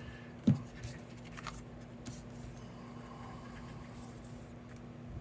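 Paper card pieces being handled and pressed down on a table, with light rustling and small clicks, and one low thump about half a second in. A steady low hum runs underneath.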